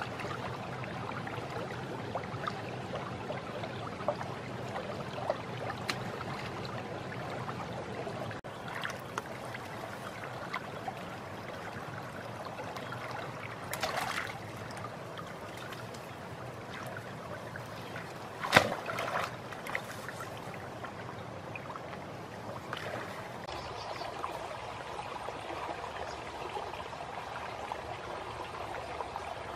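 Steady rush of water in a shallow muddy stream, with splashing as a person wades through it. A brief splash comes about halfway in, and a sharper, louder splash a few seconds later.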